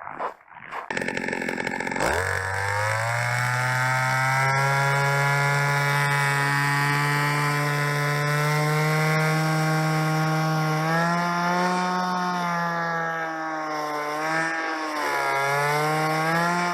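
Small petrol engine of a motor ice auger catching about two seconds in, revving up and running fast and steady. Its pitch dips and recovers several times near the end.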